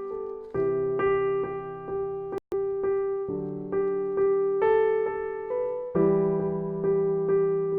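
Background piano music: evenly repeated chords with a steady pulse. It cuts out for an instant about two and a half seconds in.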